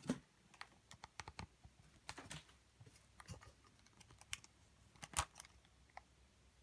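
Faint irregular clicks and knocks, a dozen or so at uneven intervals, some with a dull low thump. The loudest come just after the start and about five seconds in.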